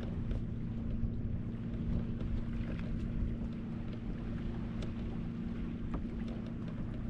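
A steady low motor hum with a constant pitch, under wind noise on the microphone.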